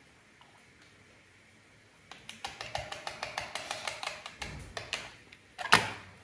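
Hand-powered pull-cord food chopper in use: rapid clicking and a whirr of the spinning blades for about three seconds as it chops onion and herbs, then a single sharp plastic clack near the end.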